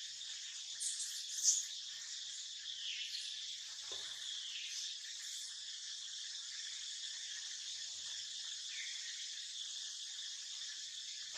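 Steady, even insect chorus, with a few short high calls over it in the first half, the loudest about a second and a half in.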